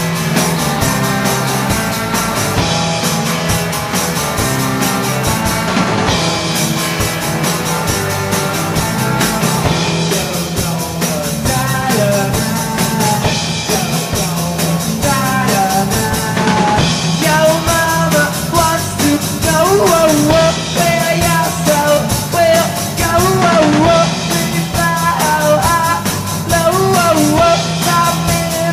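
Garage rock band playing live: pounding drums and distorted electric guitar, with a voice singing over them from about halfway through.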